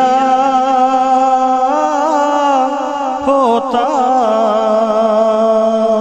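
A man singing a naat, an Urdu devotional song, through a microphone, in long drawn-out notes that waver and bend, with a short break a little after three seconds.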